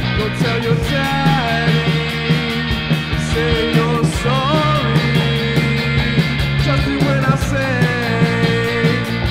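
Rock band playing: electric guitar over a drum kit, with a melody line that slides between notes.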